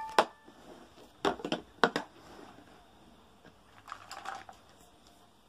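Hard plastic toy kitchen pieces clicking and knocking as they are handled and fitted together: a few sharp clicks in the first two seconds, then a short run of light taps about four seconds in.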